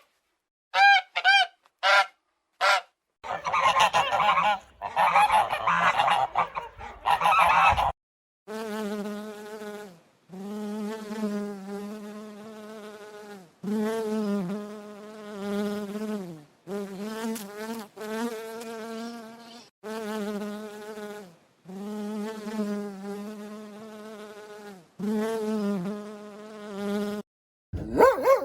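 A few short honking calls at the start, typical of a goose, then a noisy rustling stretch, then a long series of steady insect-like buzzes, each lasting a second or two with short breaks between them.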